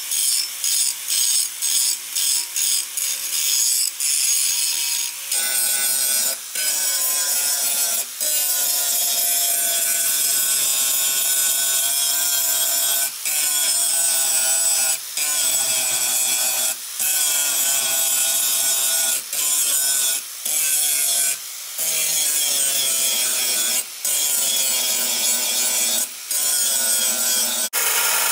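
Angle grinder grinding a forged steel knife blank, a steady high whine whose pitch sags a little under load; it breaks off and picks up again every second or two. Just before the end it gives way to a belt grinder.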